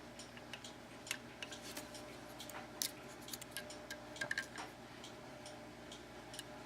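Faint, irregular light metallic clicks and scrapes of a hook pick and tension wrench working the pins inside an Abus 72/40 padlock, with a few sharper clicks about three and four seconds in.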